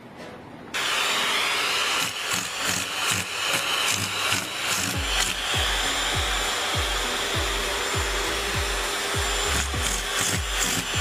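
Vacuum cleaner running with a steady hissing rush, starting suddenly under a second in, as a cat clutches its hose nozzle in its paws. Background music with a thumping beat comes in about five seconds in.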